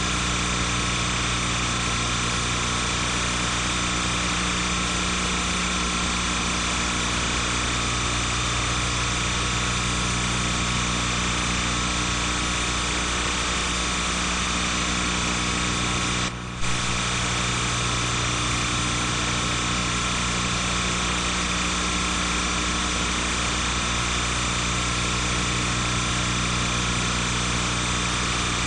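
Steady electrical hum and hiss made of several constant tones, with no sound from the scene itself, since the footage is silent. It drops out for a moment about halfway through.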